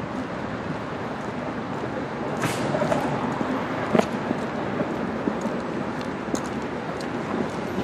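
Steady outdoor traffic noise with a few scattered sharp clicks.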